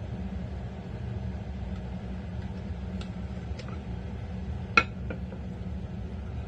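A steady low hum, with a few light clicks and one sharp clink of dishware a little under five seconds in.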